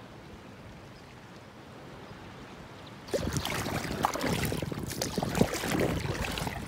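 Water splashing and sloshing around a small inflatable dinghy moving across a calm cove, with wind on the microphone. It starts suddenly about three seconds in, after a stretch of faint steady hiss.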